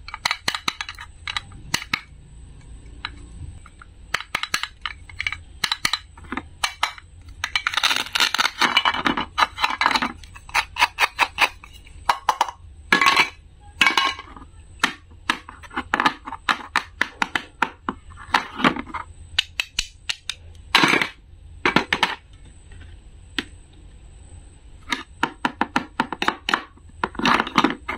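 Toy plastic and wooden play-food pieces and a wooden toy knife being handled on a plastic board: many sharp taps and clicks as pieces are picked up, pressed together and set down, with a few longer scraping stretches.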